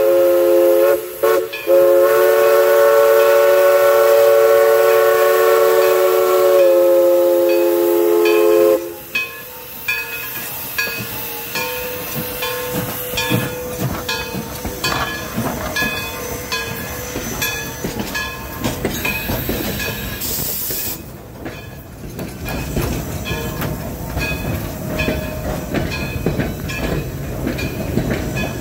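East Broad Top No. 16, a narrow-gauge 2-8-2 steam locomotive, sounding its whistle as a steady chord of several notes. It breaks briefly twice about a second in, then gives one long blast that cuts off about nine seconds in. The locomotive and its passenger cars then roll slowly past with an even, rhythmic clatter, a short burst of steam hiss about twenty seconds in, and a growing rumble as the cars go by.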